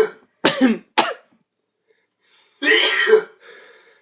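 Sneezing: two quick, short sneezes about half a second in, then a longer sneeze about three seconds in that trails off.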